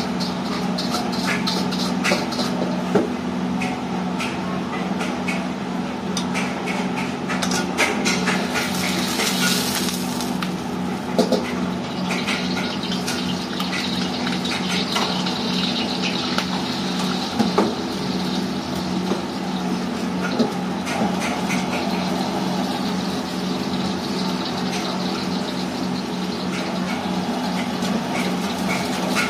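Steady low hum of a wok stove and its overhead extractor fan, with a steel ladle and brush scraping and clinking against a carbon-steel wok. There are stretches of hissing and sizzling from the hot wok as it is cleaned and oiled.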